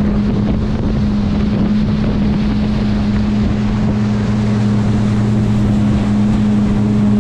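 Outboard motor on a fishing boat running steadily at speed, a constant low hum under the rush of wind on the microphone and the churning wake.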